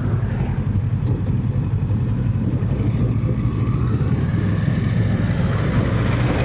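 Kawasaki Versys 650's parallel-twin engine running steadily while riding, a continuous low drone mixed with road and wind noise.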